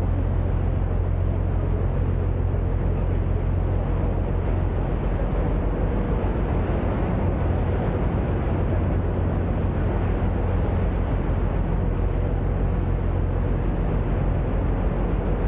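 A boat's engine running steadily, a low drone under a constant rushing hiss.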